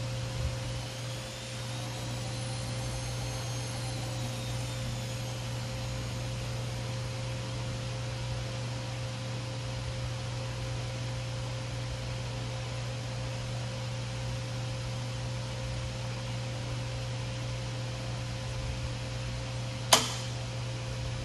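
Sharp LMV-42 vertical milling machine humming steadily, with a constant tone, while its servo power feed drives the table along its length; a faint whine rises and falls early on. A sharp click sounds near the end.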